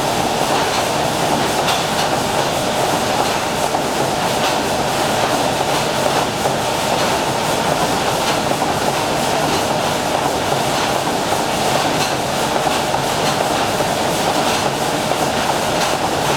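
SS Shieldhall's 800 hp triple-expansion steam engine running steadily at speed, its cranks, connecting rods and valve gear turning close by. The noise is loud and even, with faint ticks throughout.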